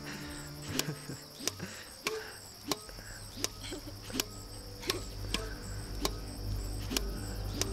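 Film score music with a sharp, steady tick about every two-thirds of a second over sustained tones. A deep bass swells in about three seconds in.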